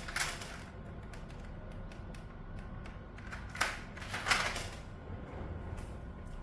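Typing on a mechanical keyboard fitted with PBT dye-sub keycaps: a run of quick, uneven key clacks, with two louder strokes about midway.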